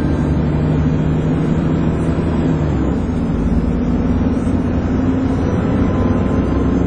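Dennis Trident 2 double-decker bus under way, its engine and drivetrain running with the steady hoover-like whine the type is known for. The engine note drops in pitch about three seconds in.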